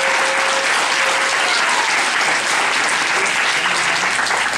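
A roomful of people applauding, steady dense clapping.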